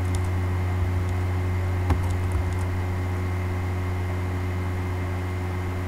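A steady low hum with faint hiss, and a few faint keyboard key clicks as numbers are typed, the clearest about two seconds in.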